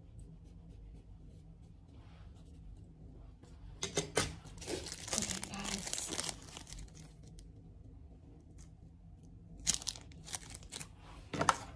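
A plastic wrapper of a pack of cotton buds being torn open and crinkled by hand: a rustling, tearing stretch about four seconds in that lasts a couple of seconds, then shorter crinkles near the end.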